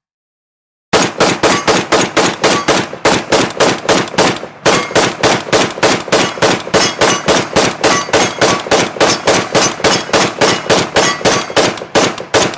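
Gunfire sound effect: a rapid, even string of shots at about five a second, starting about a second in, with a brief break about four and a half seconds in. The shots stop just before the end with a short fading tail.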